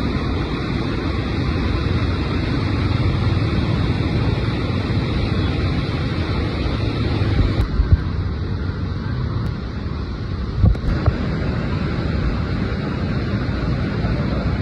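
River swollen by continuous rain, rushing over a weir as a steady loud wash of water. A few brief bumps sound about eight and eleven seconds in.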